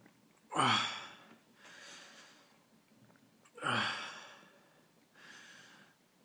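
A man sighing heavily twice, about three seconds apart: each a loud voiced sigh falling in pitch, followed by a softer breath. He is in pain from the burn of a Carolina Reaper pepper he has eaten.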